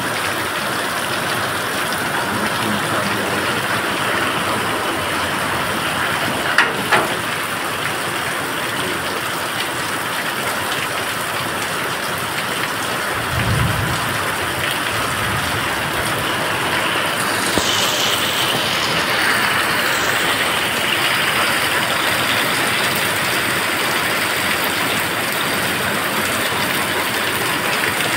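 Heavy rain pouring steadily onto the road and the roof overhead. Two sharp knocks come about a quarter of the way in, and a brief low rumble about halfway.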